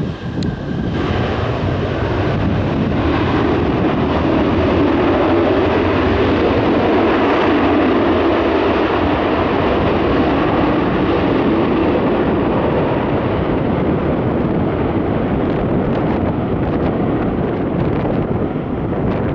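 Jet noise from a McDonnell Douglas MD-88's rear-mounted Pratt & Whitney JT8D turbofans as the airliner rolls out and slows on the runway just after touchdown: a steady, heavy rush that grows louder about two to three seconds in and eases a little near the end.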